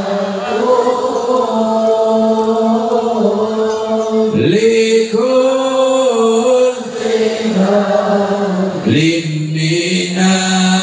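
A man's voice chanting an Islamic devotional prayer into a microphone over a PA, in long drawn-out melodic notes, with sliding dips in pitch about four and nine seconds in.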